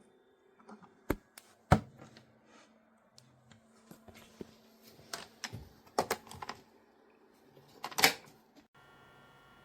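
Irregular sharp clicks and knocks with uneven gaps, the loudest about two seconds in and near the end.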